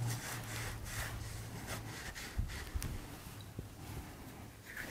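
Faint rubbing and scratching of a cloth rag wiping lubricant and grit from a tripod leg's threaded twist-lock joint, over a faint low hum.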